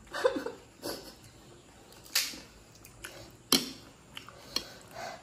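Tabletop eating sounds: about five short sharp clicks and taps, from a metal spoon against the plate of potato filling and crisp puri shells being handled.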